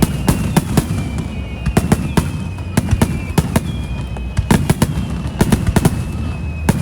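Fireworks display: sharp bangs and crackles several times a second at an uneven pace over a low rumble, with thin high whistling tones that slowly glide down in pitch.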